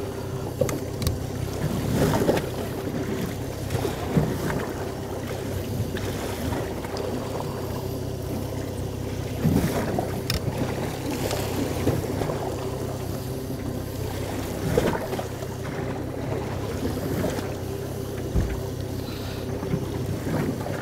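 Steady low hum of a boat's engine running, with scattered soft rustles and clicks as waxed floss and a rigging needle are worked through a squid on a plastic cutting board.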